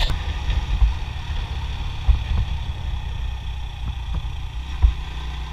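Motorcycle riding along a road, its engine running steadily under a heavy low rumble, with a few sharper low thumps, about two seconds in and near the end.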